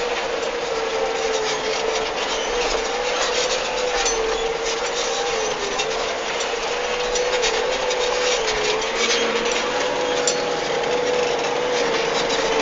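Case IH Puma CVX 160 tractor's six-cylinder diesel running steadily under ploughing load, with a steady whine that sags slightly in pitch now and then.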